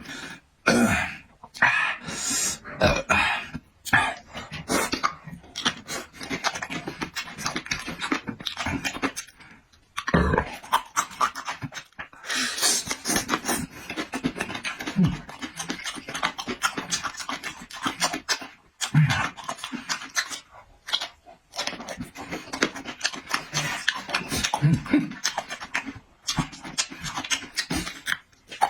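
Close-miked eating sounds: chewing, lip smacking and heavy breathing through the nose, in a dense irregular run of wet clicks with brief pauses.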